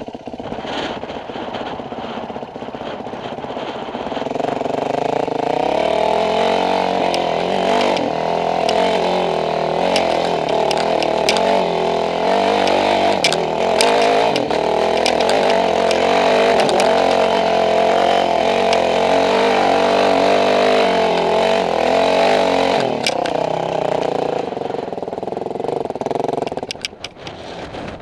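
Off-road vehicle engine running under load on a trail ride, the engine note building about four seconds in, holding steady, then dropping away near the end. Scattered sharp clicks sound over it.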